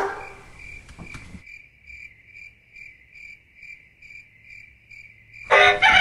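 A sharp knock, then a cricket chirping in an even rhythm of high chirps, about two and a half a second; music comes in near the end.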